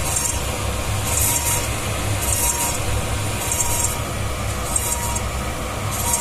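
Dental milling machine running: a steady low hum with a faint steady tone, and a short high hiss recurring about once a second.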